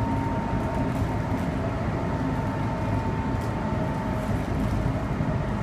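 Meitetsu 3500 series electric train running, heard from inside the passenger car: a steady rumble of wheels on rail, with a thin steady tone above it.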